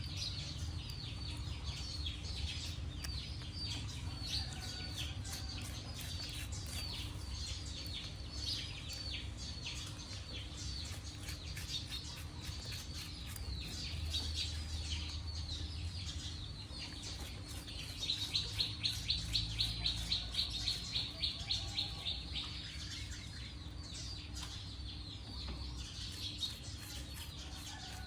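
Many short, high-pitched chirping calls that fall in pitch, with a fast run of louder chirps at about six a second a little past the middle, over a steady low hum.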